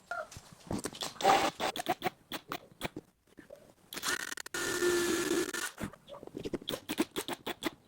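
Scraping, clicking and knocking of tools and wood being handled, with a small power tool, such as a drill, running briefly for under two seconds about four seconds in.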